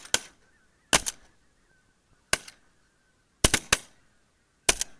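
A rapid string of shotgun shots, about ten sharp bangs in five seconds, several in quick pairs a fraction of a second apart, each with a short fading tail.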